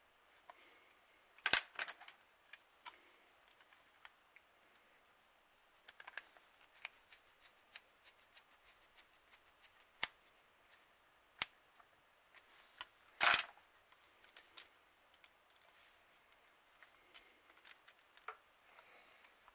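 Scattered small clicks and taps of small tools and parts being handled on a workbench, with two louder bursts of clicking, about one and a half seconds in and about thirteen seconds in.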